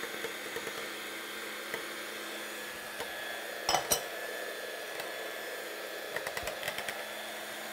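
Electric mixer running steadily, beating a ricotta cheesecake filling of ricotta, eggs and sugar. A brief clatter about halfway through and a few light clicks later on.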